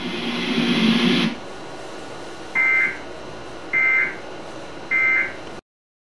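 Emergency Alert System End-of-Message data bursts from NOAA Weather Radio: three short, identical warbling buzzes about a second apart, the digital SAME code that marks the end of the alert.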